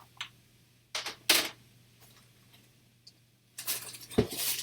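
Hard plastic CGC comic slabs clacking as they are handled and set down: a few sharp clicks, then a busier clatter near the end with one heavier knock.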